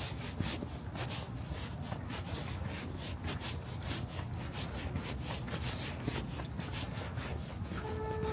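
Footsteps of a person walking at a steady pace, a rough scraping crunch about twice a second, over a low rumble. Near the end a short horn note sounds for about a second.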